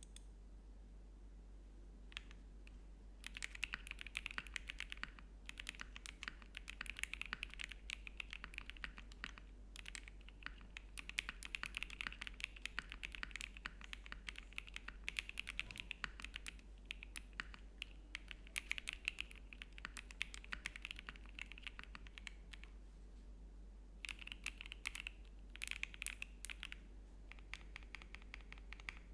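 Typing on an Akko ACR Pro 75 mechanical keyboard: quick runs of keystroke clicks. There are short pauses at the start and about two-thirds of the way through.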